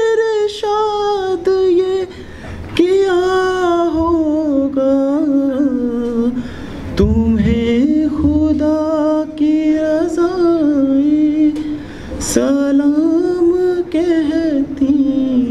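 A man singing solo into a handheld microphone, drawing out long, wavering melismatic notes of an Urdu patriotic song, with two short breaks for breath.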